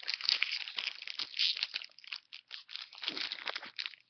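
Foil wrapper of a Pokémon card booster pack being torn open and crinkled by hand: a dense, uneven run of crackles and rips.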